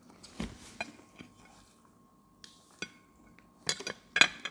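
Cutlery clinking and scraping on a ceramic plate: a few separate sharp clinks, then a quick cluster near the end, the loudest of them last.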